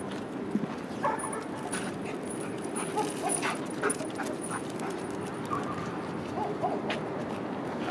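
Belgian Malinois police detection dog whining in short, high whimpers while working a search, with scattered sharp clicks.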